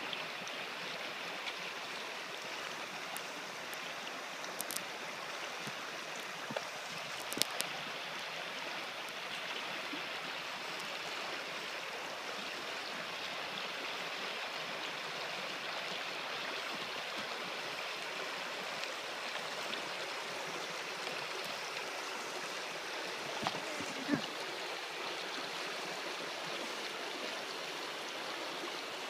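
Shallow mountain stream running over a stony bed: a steady, even rush of water, with a few short clicks near the start and one more later on.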